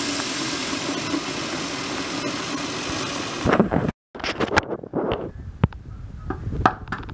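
Tap water running hard from a faucet into a small saucepan in a stainless steel sink, a steady rush that stops about three and a half seconds in. Then come a few light clicks and knocks as plastic food containers are handled.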